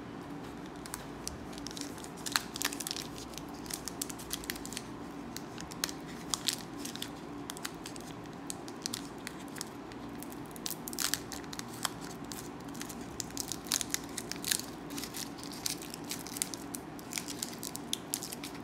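Foil Pokémon booster pack wrapper crinkling and being torn open by hand, with scattered sharp crackles throughout.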